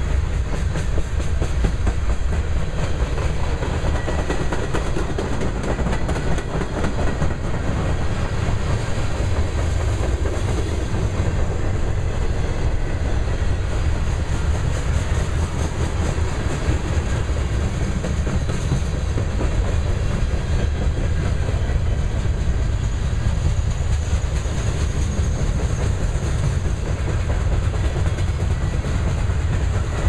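Freight train cars rolling past at close range: steel wheels running on the rails, a steady low rumble with rapid clicks.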